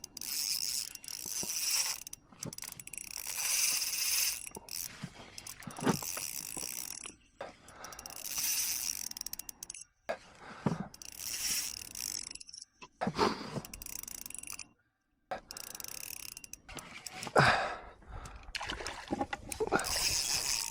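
Spinning fishing reel being cranked in stretches with short pauses, its gears whirring and ratcheting as a hooked fish is reeled in on light LRF tackle.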